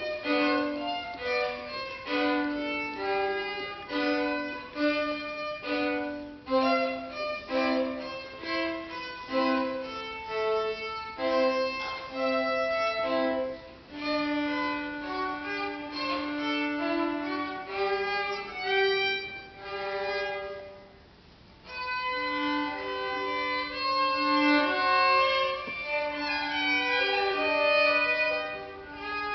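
Two violins playing a duet, two interweaving lines of bowed notes, with a brief pause about two-thirds of the way through before they carry on.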